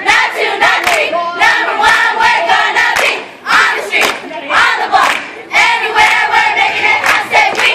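A girls' drill team chanting loudly in unison, with hand claps and foot stomps keeping a steady beat.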